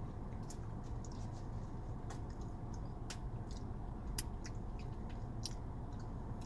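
Quiet chewing with small, sharp, wet mouth clicks scattered through, the most distinct one about four seconds in, over a steady low hum.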